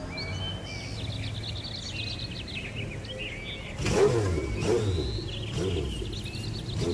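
Birds chirping over a low steady hum, then from about four seconds in an engine revving up and down in repeated swells.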